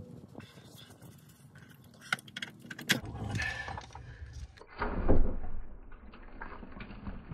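Metallic clicks and rattles of a screwdriver and hose clamp being worked on the coolant hose of a VW Vanagon automatic transmission's oil cooler, breaking the hose's seal, with handling noise and a louder knock about five seconds in.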